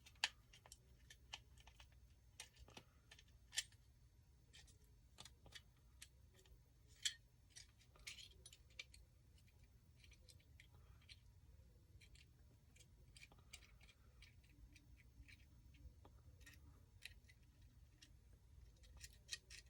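Faint, irregular clicks and light metallic taps from flat pliers bending and straightening the nickel connector strips on a Milwaukee 18 V lithium-ion battery pack, with a few sharper clicks among them.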